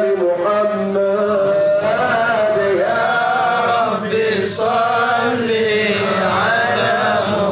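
A munshid's male voice chanting a nasheed in long melismatic phrases, its notes held and gliding up and down, with a short break about four seconds in.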